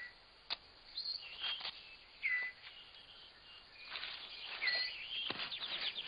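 Rainforest ambience with birds giving short, curling whistled chirps several times over a faint insect hum, plus a few brief rustling clicks.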